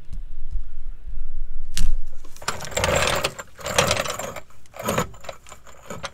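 Steel floor jack being lowered and dragged out across concrete, its metal parts clanking and rattling irregularly, with a sharp click about two seconds in.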